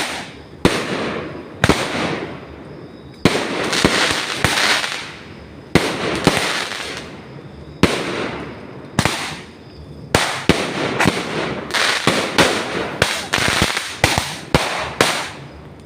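Fireworks going off repeatedly: sharp bangs, each trailing off in a smear of echo. They come every second or two at first and faster after about ten seconds.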